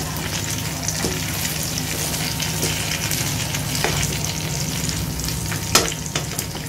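Marinated chicken leg pieces sizzling and crackling in oil in a kadhai on a raised flame, their liquid cooking off, as they are turned over with metal tongs. Scattered clicks of the tongs on the pan, with one sharp clack near the end.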